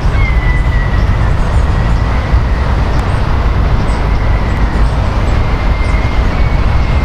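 Steady low rumble of city road traffic, with a faint thin high tone that comes and goes.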